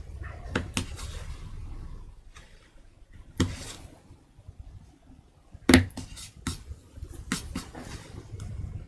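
Scattered clicks and small knocks of a carving knife cutting into and working over a wooden woodblock, with two sharper knocks about three and a half and six seconds in, over a low steady rumble.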